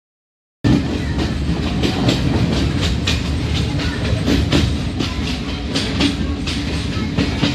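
Passenger train running, heard from inside the coach: a steady rumble and rattle, with frequent sharp clacks of the wheels over rail joints. It starts abruptly about half a second in.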